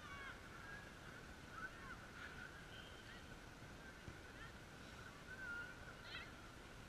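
Faint, distant shouts and calls of children playing football across the pitch, short calls now and then, over a steady faint high tone.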